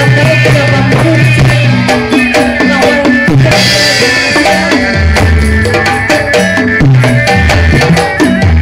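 Sundanese jaipong gamelan music driven by kendang barrel drums, played in quick strokes whose pitch bends, over ringing gong and metallophone tones with a low booming bass. A brief crash comes about three and a half seconds in.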